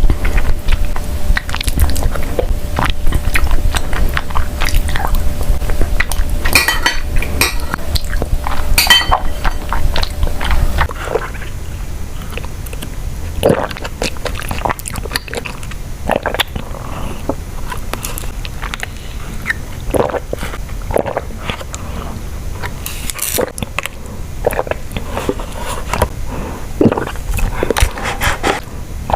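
Close-miked mukbang eating sounds: repeated bites, crunches and chewing of boba tea and food. A steady low hum sits under the first third and stops abruptly at a cut between clips.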